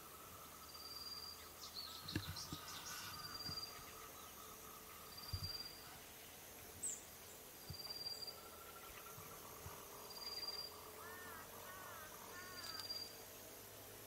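Faint outdoor wildlife sounds: a short high insect-like chirp repeating every second or two over a thin steady drone, with a few quick bird chirps about two seconds in and three arched bird call notes near the end. Several dull low thumps are mixed in.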